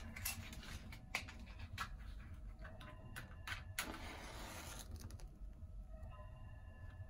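Faint clicks and scrapes of a matchbox being handled, then the scratch of a match struck on the box, flaring alight.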